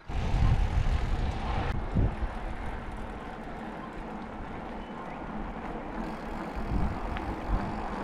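Wind noise on the microphone of a moving mountain e-bike, with the rumble of its tyres rolling on an asphalt road; louder for the first couple of seconds, then a steady rush.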